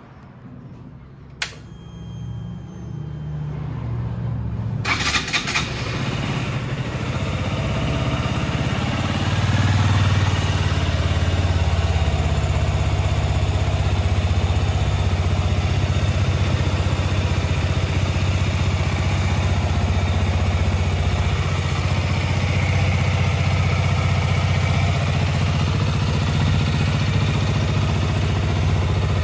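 KTM Duke 125's single-cylinder four-stroke engine: a click, then the engine comes in and grows louder over several seconds before settling into a steady idle.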